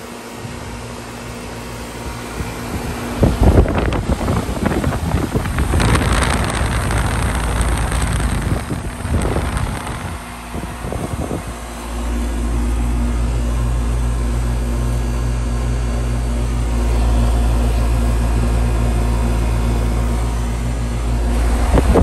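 A 2003 Carrier 38YCC 2.5-ton heat pump outdoor unit running in heat mode with a steady mechanical hum. A few seconds in there are some thumps and a stretch of hiss, and about halfway through a louder steady low rumble sets in.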